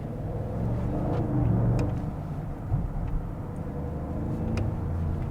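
Audi SQ8's twin-turbo V8 engine and exhaust under acceleration, rising in pitch and loudness to a peak about two seconds in, then easing to a steadier drone.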